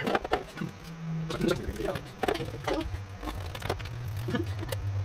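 Light clicks, taps and rustling as plastic RC truck parts are handled, with a low steady hum joining about three seconds in.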